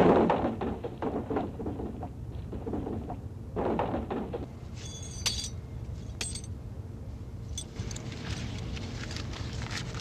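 Hollow ceramic bricks knocking and clattering as they are unloaded by hand from a truck, opening with a loud crash dying away, then a run of knocks over the first few seconds. After that come a few sharp metallic clinks and a faint steady hiss.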